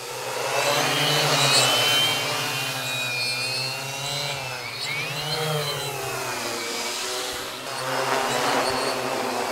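Quadcopter with 400 kV motors and 14-inch propellers buzzing close up while it descends to land. The pitch wavers up and down with throttle changes, dipping and rising again about five seconds in.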